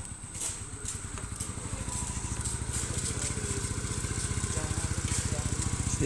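Small motorcycle engine idling with a fast, even pulse that grows louder from about two seconds in.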